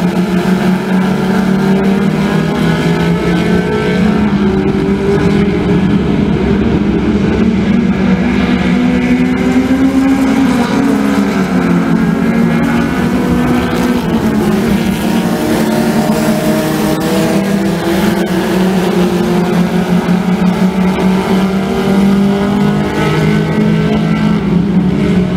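Dirt-track stock car engines running hard around the oval. The engine note falls and then climbs again about halfway through, as a car backs off for a turn and accelerates out.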